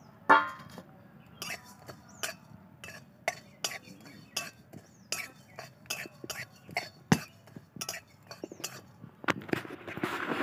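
Metal spatula scraping and knocking against an aluminium kadai while whole spices are dry-roasted in it, with irregular clinks about once or twice a second. Just after the start there is one loud ringing metal clang, and near the end a longer stretch of scraping.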